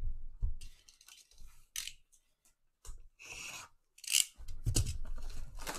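Utility knife cutting and scraping the shrink wrap on a sealed trading-card hobby box in several short raspy strokes, with thumps from the box being handled.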